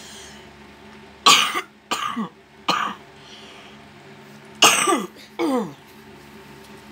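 A woman coughing in two fits: three coughs about a second in, then two more near the five-second mark.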